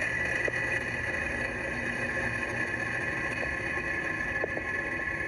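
Steady engine noise of a Falcon 9 rocket climbing just after liftoff, carried on the launch webcast feed, with no sudden changes.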